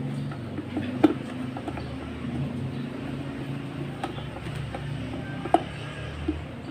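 A steady low mechanical hum, with a few sharp clicks and knocks, the loudest about a second in and another near five and a half seconds.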